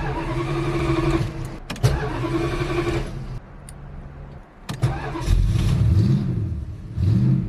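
1971 Plymouth Satellite being cranked on the starter in several bursts with short pauses and a few clicks. In the second half the pitch rises and falls twice.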